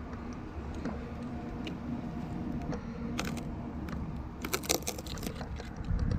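Sharp clicks and rattles in two clusters near the middle, over a steady low rumble of handling noise: a tree climber shifting on the trunk with his climbing gear.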